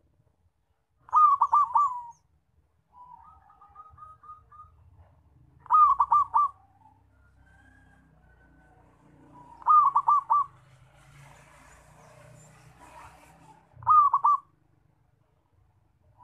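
Zebra dove (perkutut) cooing: four loud, short bursts of quick rippling coos, about one every four seconds, with fainter runs of notes in between.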